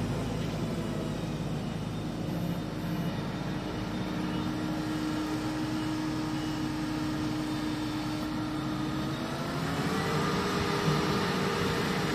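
Claas Jaguar 990 Terra Trac forage harvester chopping maize, a steady heavy machine drone with a held whine, mixed with a tractor running alongside. About nine seconds in, the whine rises in pitch and stays higher.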